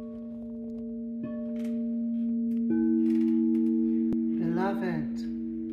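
Frosted quartz crystal singing bowls struck one after another, three notes entering in turn and ringing on together as a steady, layered chord. A brief wavering sound rises over the chord about four and a half seconds in.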